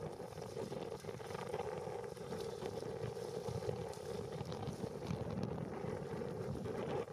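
Steady rush of river rapids, with wind buffeting the microphone in the low end.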